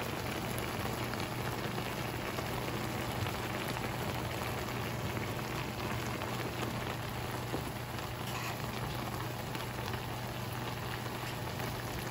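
Shrimp and bell peppers simmering in sauce in a frying pan, with a steady bubbling sizzle over a low, steady hum.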